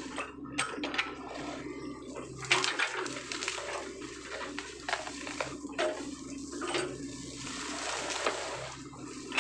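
Sany hydraulic excavator's diesel engine running steadily as its bucket works through flooded ground and brush: water splashing and pouring, with repeated sharp knocks and cracks of branches and debris.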